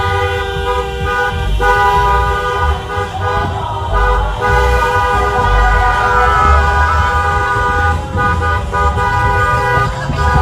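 Several car horns sounding together in long, steady blasts, held almost without break and briefly dropping out now and then, over a low rumble of moving vehicles.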